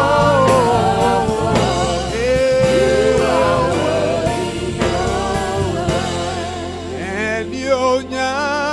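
A male gospel vocalist singing an ornamented, sliding melody over a live band. About six seconds in, the drums drop away and the backing thins to held low notes beneath a wavering vocal line.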